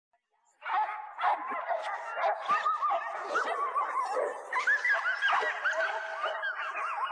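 A pack of dogs barking and yipping all at once, many overlapping voices in a continuous din that starts suddenly about half a second in.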